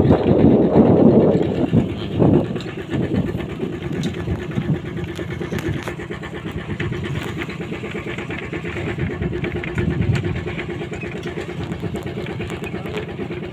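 Small vehicle engine running steadily while driving along, louder and rougher in the first couple of seconds.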